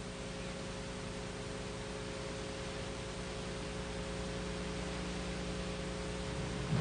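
Steady background hiss with a low hum and no distinct sound event: the recording's noise floor between narration lines.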